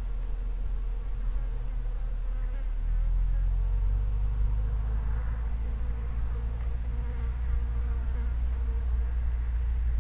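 A steady low buzzing hum over a deep rumble, unchanging throughout.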